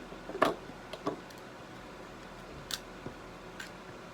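A few short sharp clicks and light knocks of small gear being handled, the loudest about half a second in.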